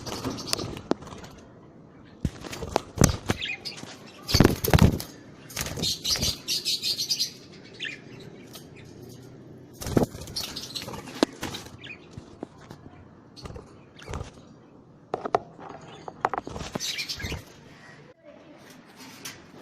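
Budgerigars chirping in short high bursts, with wing flapping and irregular sharp knocks and clicks.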